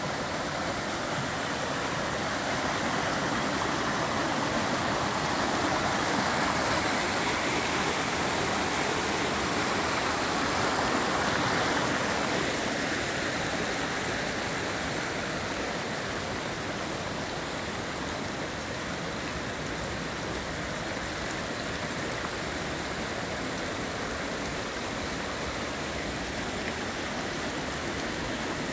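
Shallow rocky stream running over and between stones, a steady rush and babble of water. It is a little louder in the first half and eases slightly after about twelve seconds in.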